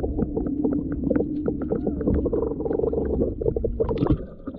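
Muffled underwater sound heard through a submerged microphone: a low rumble and a steady hum, with many small clicks and knocks.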